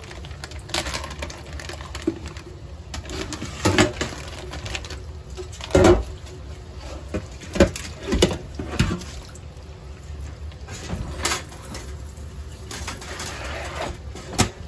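Kitchen tap running into a stainless-steel sink while a plastic zip-top bag of fish is handled and a metal baking pan is rinsed and moved, with a string of knocks, rustles and clatters, the loudest about six seconds in.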